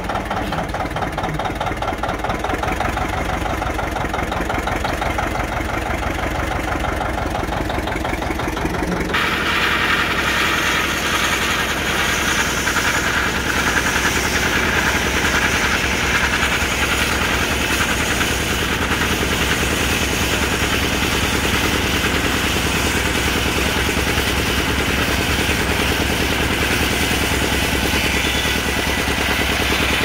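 John Deere 70 two-cylinder tractor engine running steadily under belt load, driving an antique circular sawmill. About nine seconds in the sound changes abruptly to a louder, hissier whir of the running sawmill over the engine's low rumble.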